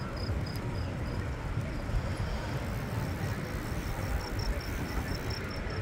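Wind rumbling on the microphone and tyre noise of a bicycle rolling along a paved path at speed. Over it runs a train of short high chirps, about five a second, which stops for about two seconds and then starts again.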